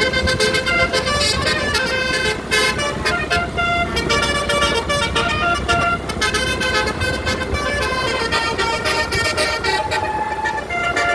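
Indonesian bus 'telolet' multi-tone horn playing a melody, its notes changing every fraction of a second, with the bus's engine running underneath.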